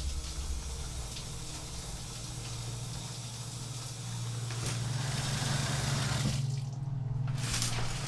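Shower water running, an even hiss of spray that drops away about two-thirds of the way through, then a brief swish near the end. A low steady hum runs underneath.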